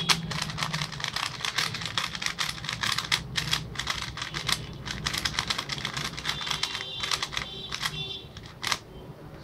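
Plastic 3x3 speed cube being turned quickly in the hands, its layers clicking in a rapid, uneven patter.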